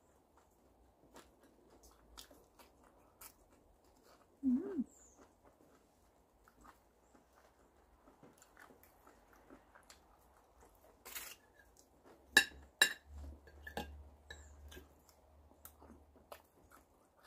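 Close-up eating sounds: quiet chewing with small scattered clicks, a brief low hummed sound about four and a half seconds in. Two sharp ringing clinks of a metal fork against a ceramic plate come near thirteen seconds.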